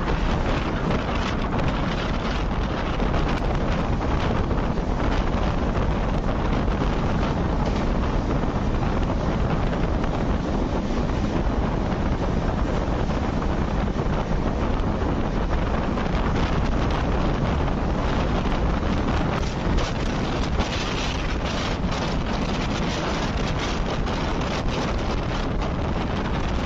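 Passenger express train running at speed, heard from an open coach door: steady wind buffeting the microphone over the rumble of the wheels on the rails. A short, sharper clatter comes about twenty seconds in.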